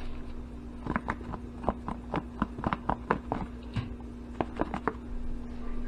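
Squirrel legs being shaken in a plastic container of flour breading: an irregular run of quick taps and knocks as the pieces hit the plastic, stopping about a second before the end. A steady low hum runs underneath.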